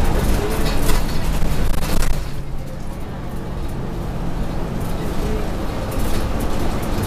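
Inside an RTS transit bus on the move: a steady diesel engine drone, with rattles and knocks from the body in the first couple of seconds. It eases to a quieter, even hum after about two seconds and grows louder again near the end.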